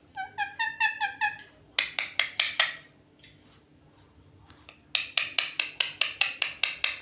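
A pet parrot calling: a quick run of about eight short pitched chirps, then a few sharp harsh clicks, and after a pause a fast string of harsh clicking notes, about seven a second.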